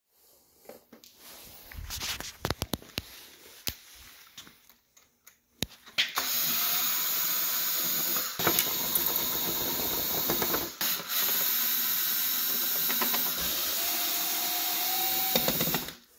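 Cordless drill-driver running steadily for about ten seconds, backing out the screws that hold down the robot's sheet-aluminium lid, after a few seconds of clicks and handling knocks. It stops abruptly shortly before the end.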